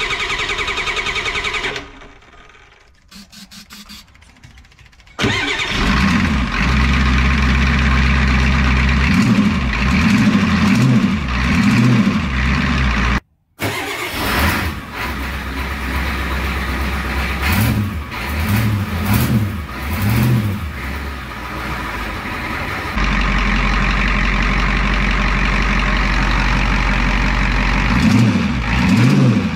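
Ford 7.3 IDI diesel V8 running with its exhaust manifold leaking, blipped up and down in pitch several times between steadier stretches. The sound drops away for a few seconds about two seconds in, and cuts out briefly near the middle.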